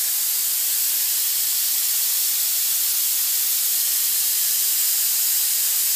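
Compressed air hissing steadily out of an open ball valve on the tank of a Speedaire 3Z406 air compressor, bleeding the tank pressure down toward the point where the pressure switch will restart the motor.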